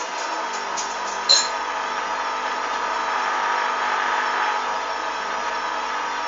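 Hoover Dynamic washing machine running its motor at a steady speed, a constant mechanical hum, with one sharp click just over a second in.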